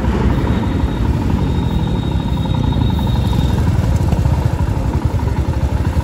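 Royal Enfield Himalayan's single-cylinder engine idling at a standstill, with a Royal Enfield Hunter 350's single-cylinder engine idling right alongside: a steady, rapid low pulse.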